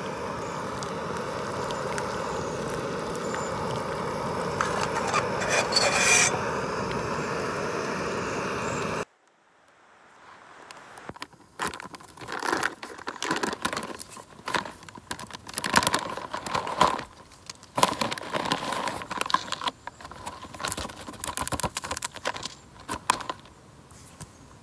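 Backpacking gas canister stove burning under a pot with a steady hiss, which stops abruptly about nine seconds in. Then a foil freeze-dried meal pouch is crinkled and opened, with irregular crackling rustles.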